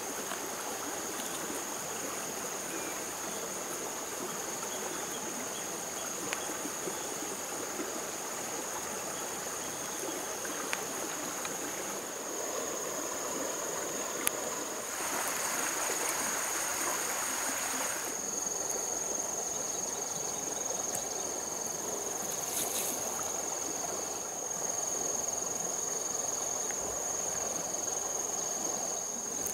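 Insects (crickets or cicadas) droning on one steady high tone, over a steady rushing hiss like running water that swells for a few seconds about halfway. A few faint clicks stand out now and then.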